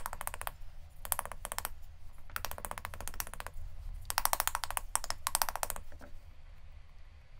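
Wooden rice spoon patting an upturned pinch pot of red terra cotta air-dry clay, paddling its outside into shape. The pats come in about six quick bursts of roughly ten a second, with short pauses between them. They stop about six seconds in.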